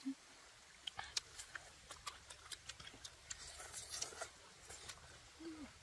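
Close-miked wet mouth sounds: lip smacks and tongue clicks, faint and irregular.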